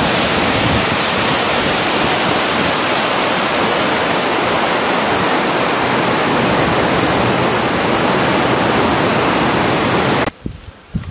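Steady rush of white water tumbling over rocks in a small rapid, cutting off suddenly near the end.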